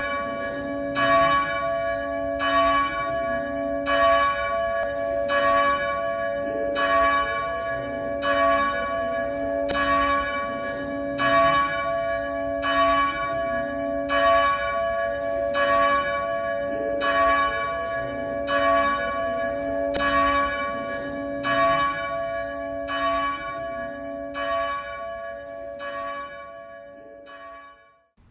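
A single church bell tolling steadily, about one stroke every second and a half, each stroke ringing on into the next. It fades out just before the end.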